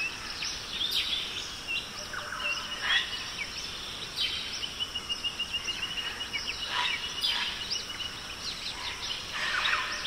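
Several small songbirds chirping and calling, with a long rapid trill of evenly repeated high notes around the middle, over a steady background hiss.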